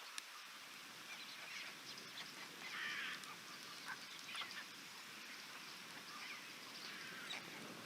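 Steady patter of rain with scattered short, falling bird calls; the loudest cluster comes about three seconds in.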